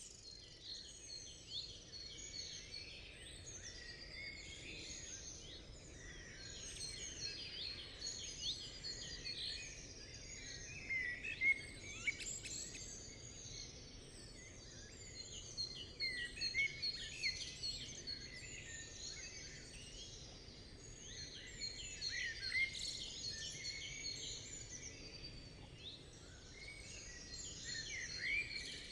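Many small birds chirping and twittering at once, a dense steady chorus of short high calls, with a few louder chirps now and then.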